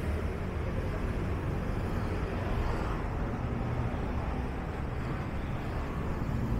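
Street ambience dominated by traffic: a steady low rumble of vehicle engines and tyres.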